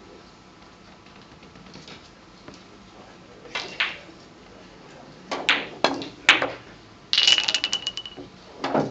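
Billiard balls clicking against one another: a few single sharp clicks, then a quick clattering run of clicks with a ringing tone about seven seconds in, and more clicks near the end.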